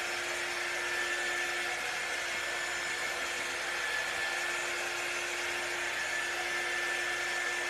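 A steady whir of a small electric motor, even and unchanging, with a faint steady hum under it.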